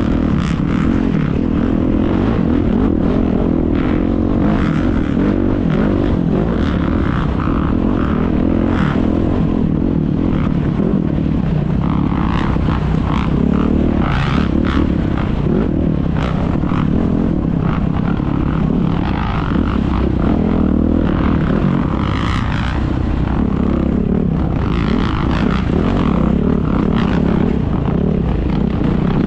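Dirt bike engine running steadily under way on a rough trail, heard from on the bike, with scattered knocks and scrapes from the ride.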